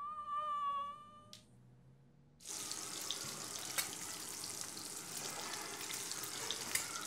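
A high, wavering wail lasting about a second, then, from about two and a half seconds in, eggs and bacon sizzling in a frying pan, with an occasional pop.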